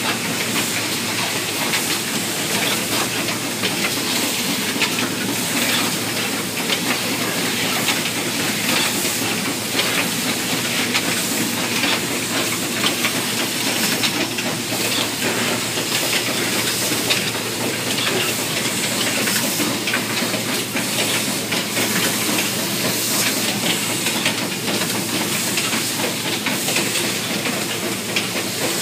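Automated electronic connector assembly machine running: a steady hiss under a dense, fast clatter of small clicks from its moving parts.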